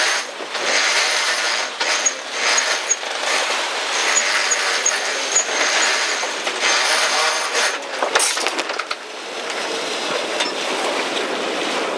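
Wind buffeting the microphone and water rushing along the hull of a sailing yacht under way, rising and falling in gusts, with a sharp knock about eight seconds in.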